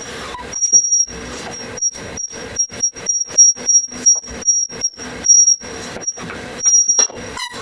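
Stool squeaking and knocking in rapid, irregular strokes, several a second, under a thin, steady high whistle-like tone.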